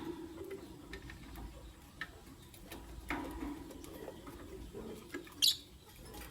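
Lovebirds chirping: a few short squeaky calls and light taps, with one bright high chirp about five and a half seconds in.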